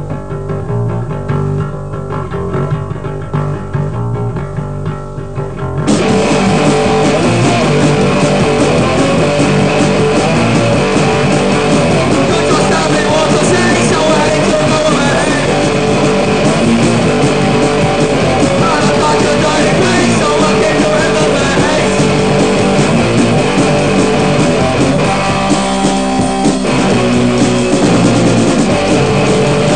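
Hardcore punk band recording with guitars. A quieter intro plays first, then the song comes in at full volume about six seconds in.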